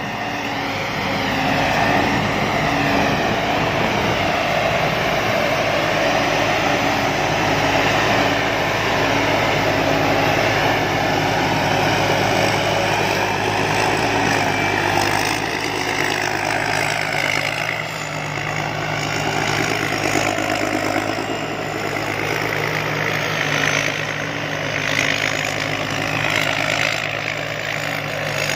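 Engine of a Somboon Pattana rice combine harvester running steadily at idle, its note stepping up slightly about halfway through.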